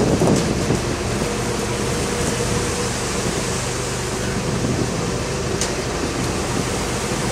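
Concrete truck's engine running steadily, a constant hum under a wash of noise.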